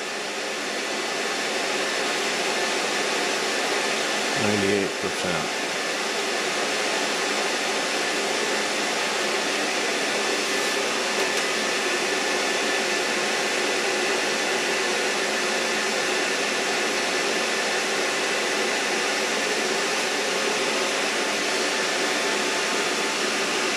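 Steady whirring of fans running under heavy load: an electric fan heater blowing on its high setting together with the power inverter's cooling fan, as the inverter draws about 105 amps from a 12-volt LiFePO4 battery.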